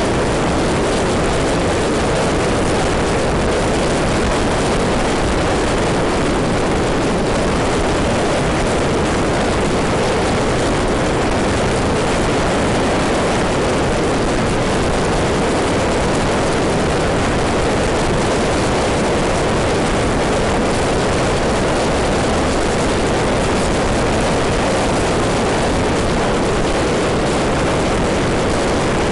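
Steady rush of wind on the microphone, mixed with engine and road noise, from a maxi-scooter riding at speed. The noise is unbroken and keeps an even level throughout.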